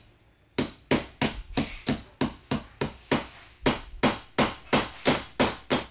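A small ball-peen hammer tapping a pin into its hole in the dart gun's barrel and end cap, in light, quick, even blows about four a second. The tapping starts about half a second in.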